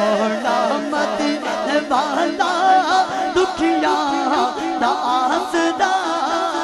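A male voice singing a Punjabi naat through a microphone and PA, in long wavering melodic lines.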